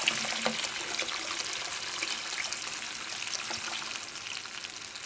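A steady stream of water poured into a kazan of fried soup ingredients, splashing into the liquid as the pot fills. It runs on evenly, easing a little toward the end.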